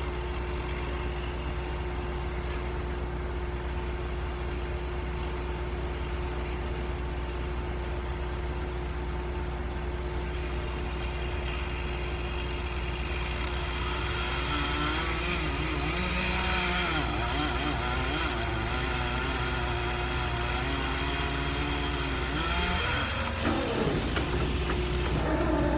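An engine running steadily, its pitch wavering up and down through the second half as the revs change.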